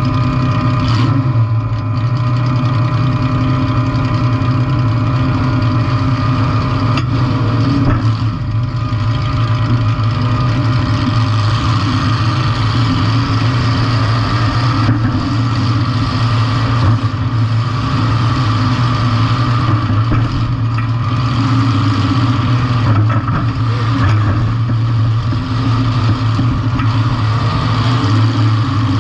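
Compact demolition-derby car's engine running steadily at a constant pitch.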